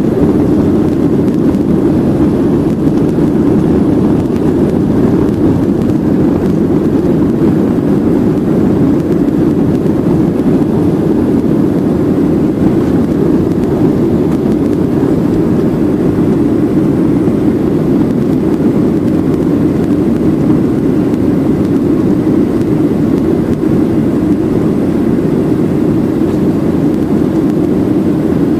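Steady engine and airflow noise of a jet airliner climbing after takeoff, heard inside the cabin at a window seat. It is loud and even, with most of its weight low and no change.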